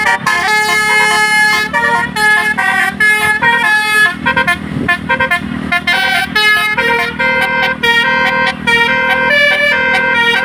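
Tour bus's telolet basuri musical horn playing a fast melody of short pitched notes in a continuous run, with a low rumble underneath.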